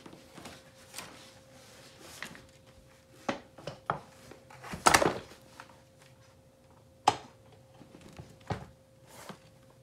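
Scattered knocks and clunks of an office chair's seat assembly being handled and lowered onto a new gas cylinder in its base, the loudest about five seconds in.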